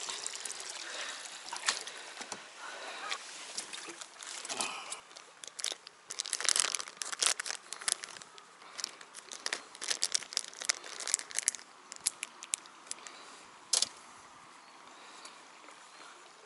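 Irregular close-up rustling and crinkling with many sharp little clicks, as of material being handled, busiest through the middle and quieter near the end.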